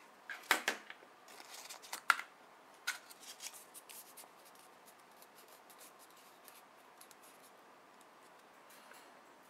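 Handling noises of a felt-tip pen and a small cardboard cutout on a table: a cluster of sharp clicks and rustles in the first few seconds, loudest about half a second and two seconds in, then only faint ticks.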